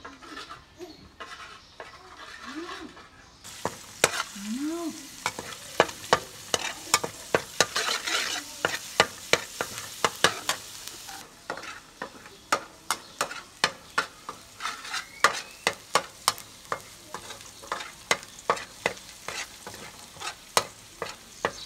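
Minced garlic sizzling in hot oil in a steel wok, with a metal spatula scraping and clicking against the pan several times a second as it is stirred. The sizzle grows louder a few seconds in.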